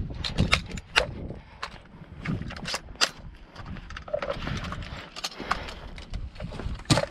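Airsoft rifle being reloaded by hand: an irregular run of sharp plastic-and-metal clicks, clacks and knocks as magazines are pulled, swapped and dropped onto a tarp.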